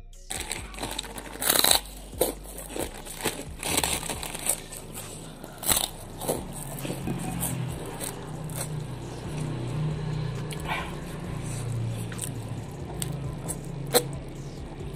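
Close-up eating sounds: a run of loud, crisp crunching bites of puffed crackers in the first half, then softer chewing and small mouth noises.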